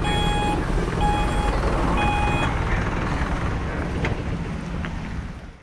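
Vehicle reversing alarm beeping three times, about once a second, over a steady low rumble. The sound fades out near the end.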